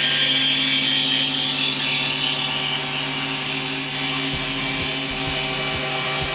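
Electric motor of a boat's engine-hatch lift running steadily as it raises the hatch, a steady mechanical hum.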